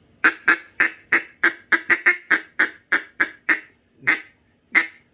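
Acrylic big bore mallard duck call blown in a quick run of about a dozen short, clipped hicks. In the last second and a half they slow to single notes spaced well apart.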